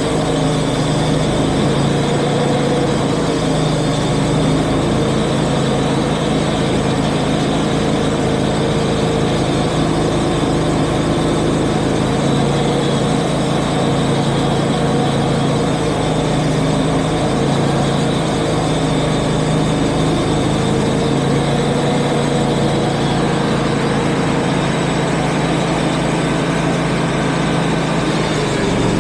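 Engine of a Wood-Mizer portable band sawmill running steadily, with its pitch wavering slightly.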